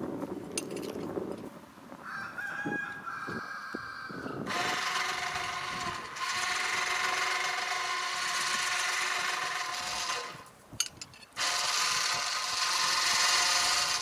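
Rugcel crane's electric winch motor running with a steady whine in two runs. The first starts a few seconds in and lasts about six seconds. After a short break with a couple of clicks, the second runs on near the end.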